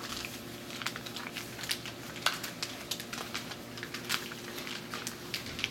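A sheet of paper being folded and creased by hand: irregular light crinkles and small taps.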